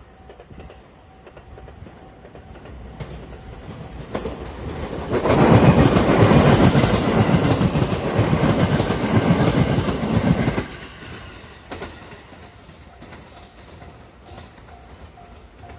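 Shiokaze limited express electric train passing the level crossing, loud for about six seconds from about five seconds in, with the clatter of its wheels. The crossing's warning bell rings in repeated dings before the train reaches it and again near the end.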